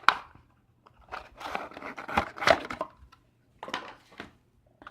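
Packaging rustling and clicking as contents are taken out of a power-bank box, in short irregular bouts with a few sharp clicks.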